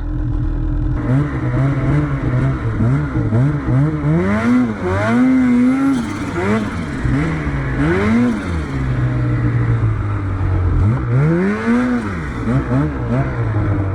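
Two-stroke snowmobile engine revving up and down over and over as the sled is ridden through deep snow, with a steadier stretch a little past the middle.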